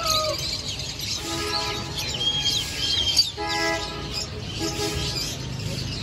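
Many caged small birds chirping and tweeting in quick, high calls. A short steady pitched tone also sounds three times, about a second or more apart.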